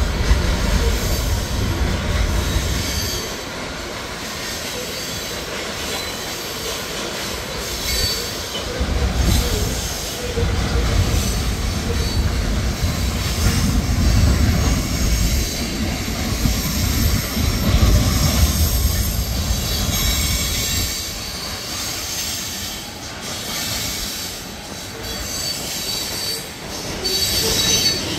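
Freight train of hopper cars rolling past: steady wheel-on-rail noise over a low rumble that swells and fades, with thin high-pitched squeals coming and going.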